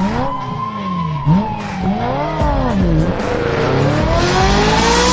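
Car engine revving up and down several times, with tyre-screech noise building over the last couple of seconds.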